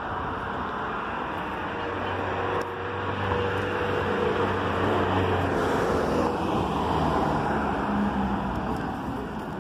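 Street traffic, with a van driving past close by: its engine and tyre noise build up and then fade as it moves off, over steady background traffic.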